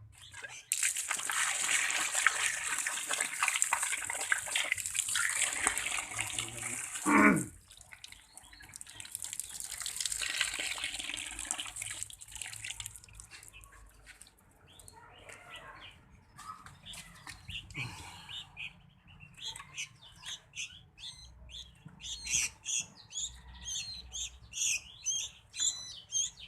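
Water hissing in two long stretches of several seconds each, as when a caged pet bird is sprayed or its cage washed. Over the last several seconds a small bird chirps rapidly and repeatedly.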